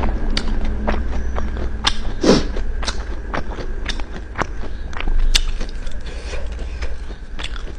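Close-miked chewing of crispy fried meatball (basreng), with irregular sharp crunches and crackles as it is bitten and chewed.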